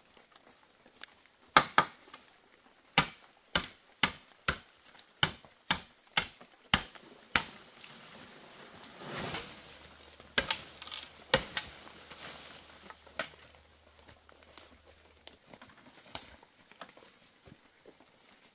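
A series of sharp knocks, about two a second for several seconds, then a brief rustling swell and a few scattered knocks.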